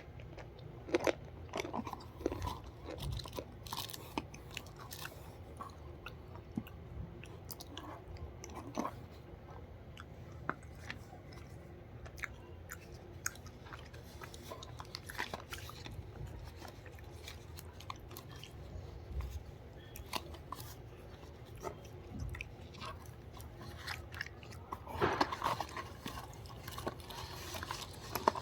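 A person chewing and biting crunchy food close to the microphone, with irregular crunches and a thicker run of loud crunching near the end.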